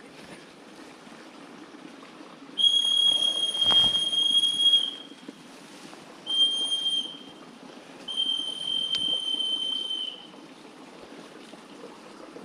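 A hand-blown whistle sounding three steady, high blasts: long, short, then long again.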